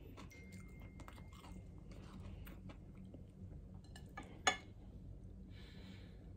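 Faint sounds of a person eating rice by hand: chewing and small smacks and clicks of fingers working rice on a plate, with one sharper click about four and a half seconds in.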